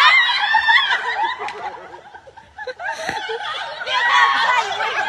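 People laughing in high-pitched bursts that die down about two seconds in and pick up again near the end, with a brief low thud about three seconds in.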